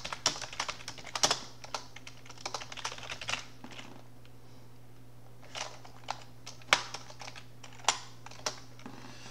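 Typing on a computer keyboard: a quick run of keystrokes for the first three and a half seconds, then a few separate keystrokes further on, over a steady low hum.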